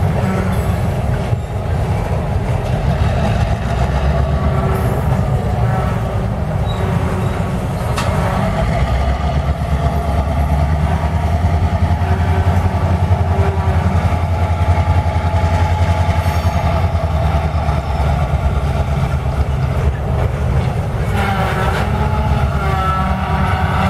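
Slow-moving freight train passing: tank cars and covered hopper cars rolling on the rails with a steady low rumble, under the drone of the EMD GP38-2 diesel locomotive that leads them. Faint ringing wheel-on-rail tones come and go and grow stronger near the end.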